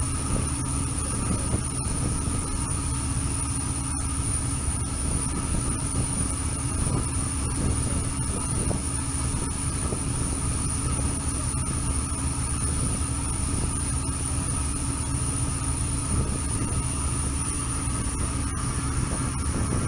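Steady low drone of a lake passenger boat's engines under way, with a constant thin high whine above it.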